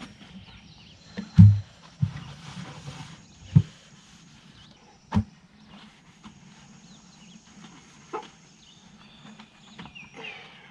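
Empty white 5-gallon plastic buckets handled and set down on grass: five irregular knocks and thumps, the loudest a deep thud about a second and a half in, a sharp knock about five seconds in.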